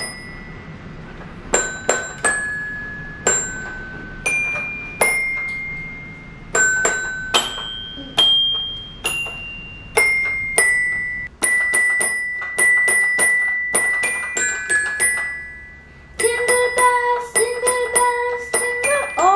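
Toy xylophone struck with a mallet, single ringing notes at uneven intervals, each with a sharp tap at the strike. About halfway through comes a quick run of repeated strikes on one high note, then a busier stretch of mixed notes near the end.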